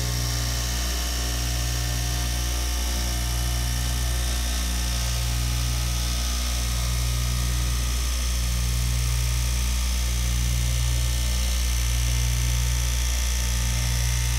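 Electric straight-knife cloth cutting machine running steadily as its vertical reciprocating blade cuts through a stack of fabric: a continuous motor hum with a high steady whine over it.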